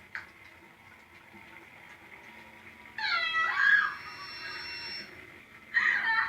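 A single loud, meow-like cry about three seconds in, falling in pitch, after a stretch of faint room tone.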